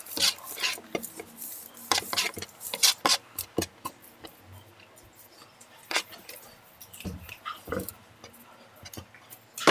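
Cutlery clinking and scraping against plates while eating Maggi noodles: irregular short clinks and taps.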